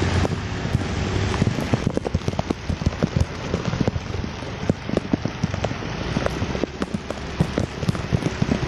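Heavy rain, with many sharp, irregular ticks of raindrops hitting the phone camera over a steady hiss of rain and wet road.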